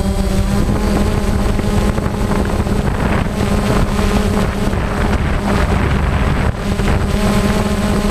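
A multirotor camera drone's electric motors and propellers running in flight: a steady buzzing drone with a strong hum and whine, mixed with wind noise on the onboard microphone.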